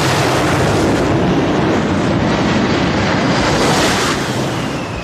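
Jet dragster powered by two Westinghouse J34 jet engines at full thrust: a loud, steady jet roar. About four seconds in it brightens as the car passes, then fades away with a faint falling whine.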